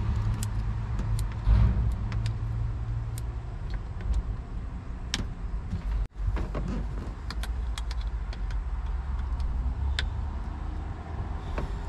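Speedboat engine running unevenly at a low idle, down a cylinder, with scattered light clicks over the steady low hum; it breaks off for an instant about six seconds in.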